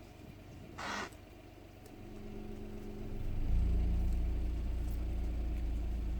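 One short call from an impala about a second in; then a vehicle engine comes up from about two seconds in and runs loud and steady from about halfway.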